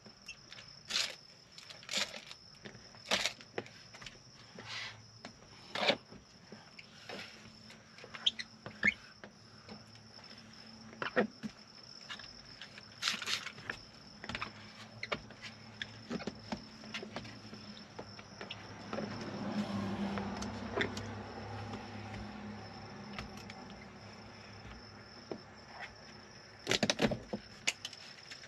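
Short scraping strokes of a squeegee working tint film against a wet truck door window, about one a second at first and then sparser. Under them runs a steady high insect trill. A low hum swells and fades about two-thirds of the way in, and a short burst of louder strokes comes near the end.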